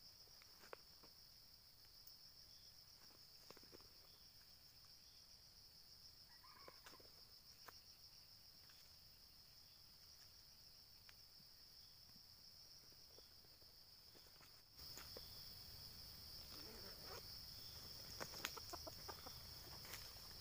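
Near silence with a steady high-pitched insect drone, like crickets. A brief faint call sounds about six seconds in, and soft clicks and rustles of dry leaves grow more frequent near the end.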